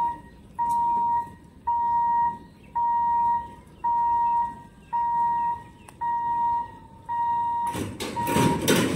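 Level-crossing warning hooter sounding a steady beeping tone, about one half-second beep each second, while the barrier booms lower. Near the end a loud rattling clatter as the boom comes down to rest.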